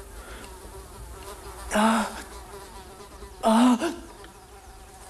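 A man gives two short, strained, rasping gasps after downing strong home-distilled moonshine, about two and three and a half seconds in. They are the choked reaction to the burn of the spirit. A faint steady buzzing runs underneath.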